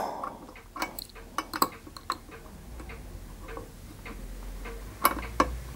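Light, irregular metallic clicks and taps of a small adjustable spanner being fitted to a fitting on a copper model steam engine, its jaws too wide to grip the nut. There are a few sharper clicks about a second and a half in and again near the end.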